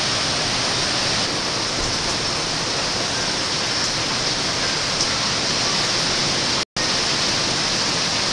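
Steady hiss of hurricane rain and wind. It drops out completely for a split second about two-thirds of the way through, then resumes.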